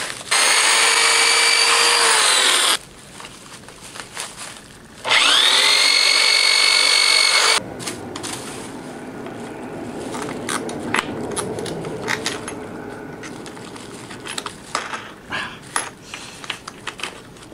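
Electric drill drilling holes through a mother mold so the sections can be bolted together: two runs of about two and a half seconds each, a steady whine that rises as the second run spins up. After that, small irregular clicks and rustling of plastic sheeting as the mold is handled.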